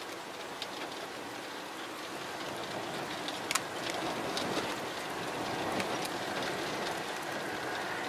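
Steady hiss of typhoon rain, growing a little louder partway through, with a few sharp ticks of drops striking close by.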